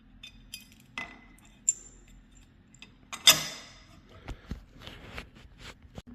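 Small metal clicks and clinks of screws and lock hardware being handled and fitted into the screw holes, with one louder knock about three seconds in.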